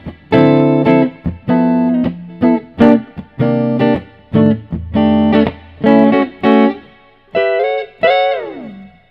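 Clean electric guitar through a Quilter Aviator Gold 12 combo amp, with only reverb added: a series of short chord stabs, then near the end a chord slid down the neck that fades out.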